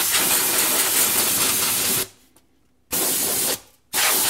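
Can of compressed air spraying in blasts to blow dust out of a laptop: a long blast that stops about two seconds in, a short one about a second later, and another starting near the end.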